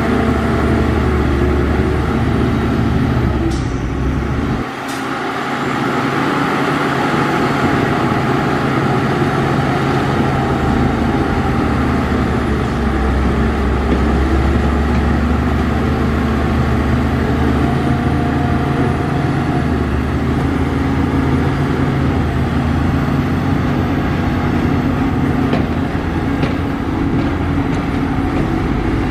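Heavy diesel earthmoving machinery running steadily with a deep engine rumble. The low rumble drops away briefly about four and a half seconds in, then comes back.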